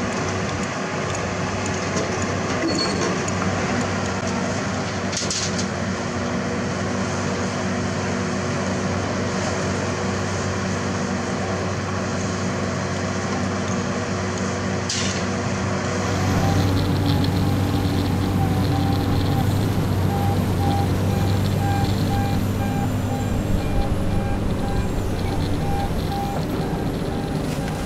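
Diesel engine of an XCMG XR150D rotary drilling rig running steadily. About halfway through it grows a little louder, and a faint, evenly repeated beep comes in over it.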